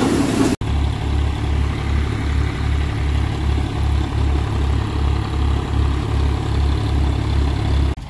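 Tractor-driven wheat thresher running at work: tractor engine and threshing machinery together, with a low throb pulsing about twice a second.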